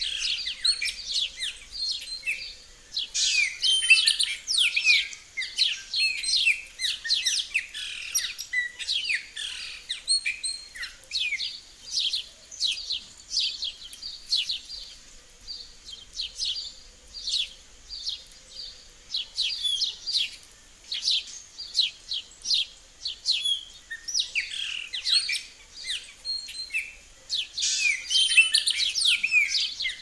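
Several songbirds chirping and calling: many short, high chirps overlapping, thickest in the first third and again near the end, thinner in between.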